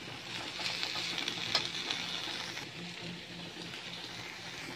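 Chopped amaranth greens sizzling in a stainless steel pan while a perforated steel spoon stirs them, with a few light clicks and scrapes of the spoon on the pan. The sizzle eases a little about halfway through.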